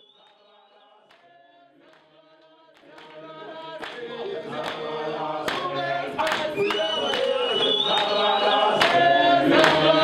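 A group of voices singing together in chorus, faint at first and swelling louder from about three seconds in, over a regular beat of sharp strikes.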